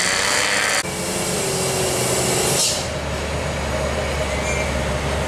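Road traffic: motorbike engines and tyre noise, then a short hiss about two and a half seconds in. After that comes the steady low drone of a Hino 500 truck's diesel engine running slowly as it comes round a bend.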